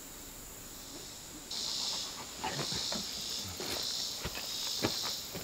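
Insects buzzing, a high hiss in repeated pulses that starts about a second and a half in, with scattered footsteps on dirt over it.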